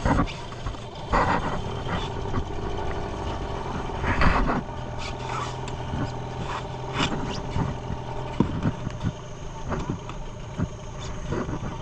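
Small boat engine running steadily at low speed, with several short, sharp sounds over it, the loudest about four seconds in.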